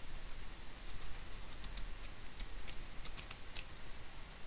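Light, quick clicks and scratches of a small steel pick working the grease out of an opened miniature ball bearing. They come in an uneven run starting about a second in and stop a little past halfway.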